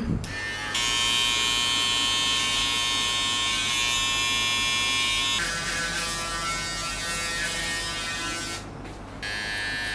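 Electric hair clippers buzzing steadily while cutting hair. The tone of the buzz changes about five seconds in, and it drops out briefly near the end before running again.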